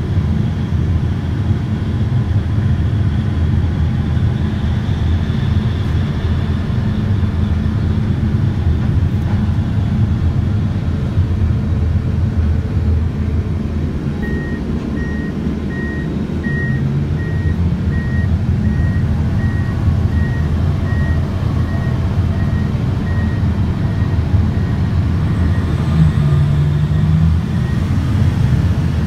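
Terex RH170 front shovel's twin engines running steadily, heard from inside the operator's cab. About halfway through, a reversing alarm starts: short high beeps repeating about every half second, from the dump truck backing in to be loaded.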